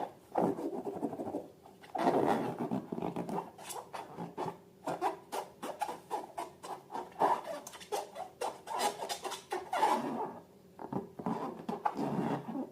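Slime being squished and worked by hand: irregular bursts of small clicks and crackles, with brief pauses between handfuls.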